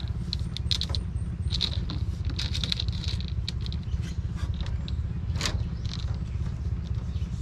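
Light clicks, taps and scrapes of a metal-framed window screen being worked back into its window frame, over a steady low rumble.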